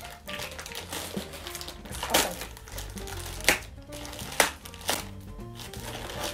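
Plastic mailer bag crinkling as it is handled and pulled open, with a few sharp crackles, over background music.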